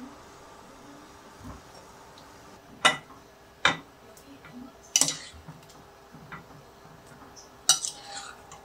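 A metal ladle clinking against the pot and a glass bowl as blanched cherry tomatoes are scooped out of hot water into the bowl. Four sharp clinks, each with a short ring, come about three seconds in, just under four, at five, and near the end.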